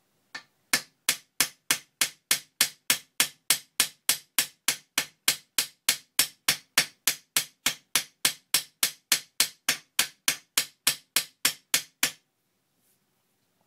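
Ball-pein hammer's domed end peening over a rivet in a metal locomotive frame plate, filling the countersink. The rapid, even hammer blows come about three a second and stop about a second and a half before the end.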